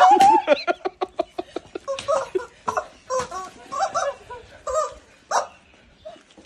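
Screaming rubber chicken toys squawking, mixed with women laughing. A loud squawk comes right at the start, followed by a quick run of laughs and further broken squawks and laughter.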